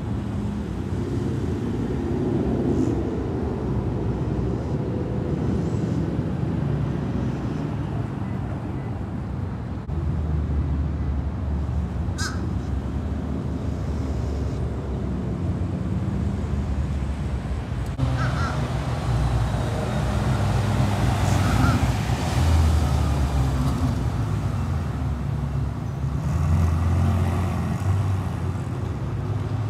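Performance car engines and exhausts rumbling as show cars, a Dodge Challenger widebody and a red Ferrari among them, pull out and drive off one after another, with louder stretches in the second half.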